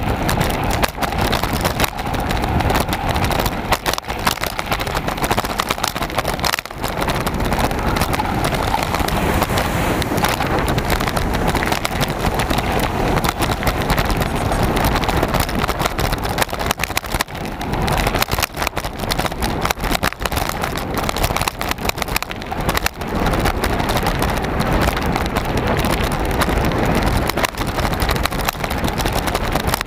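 Mountain bike ridden fast over a dirt and grass track, heard from a bike-mounted camera: steady wind rush over the microphone and tyre rumble, broken by frequent knocks and rattles as the bike goes over bumps.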